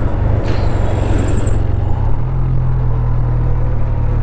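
Motorcycle engine running at low speed with a steady low rumble, its note settling into an even hum about two seconds in.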